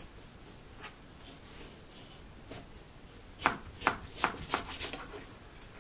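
Kitchen knife slicing through a peeled raw potato and knocking on a plastic cutting board. Faint cuts at first, then about five sharp knocks in quick succession a little past halfway.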